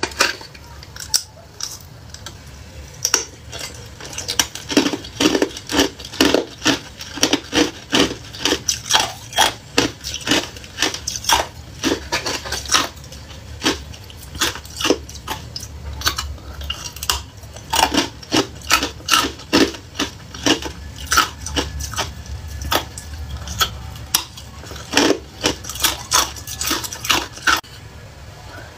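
Thin plastic ice cube tray being flexed and twisted to free the ice, with many irregular sharp clicks, crackles and clinks as the cubes pop loose and knock against the tray.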